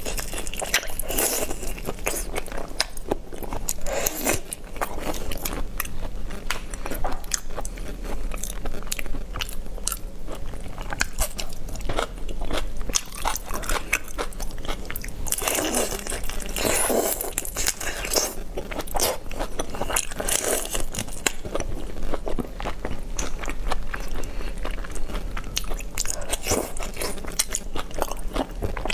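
Whole shrimp being bitten and chewed close to the microphone, the shells crunching and crackling in a steady stream of sharp clicks, with louder bouts of crunching about halfway through.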